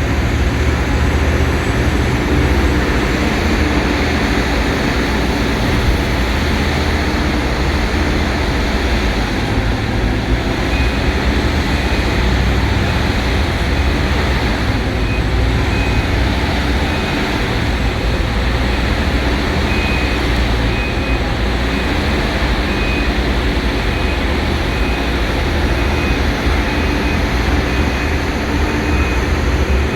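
Heavy mining machinery, a large hydraulic excavator's engine among it, running loudly and steadily with a deep rumble. From about a third of the way in, a high backup alarm beeps over it at roughly one beep a second.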